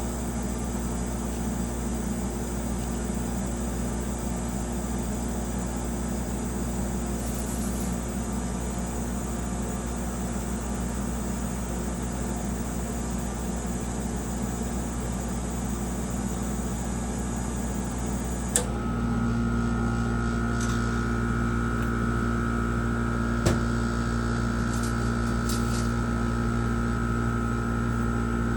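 Steady mechanical hum of a running machine. A click comes about two-thirds of the way through; after it the hum is a little louder and carries an added high, steady whine. A second click follows a few seconds later.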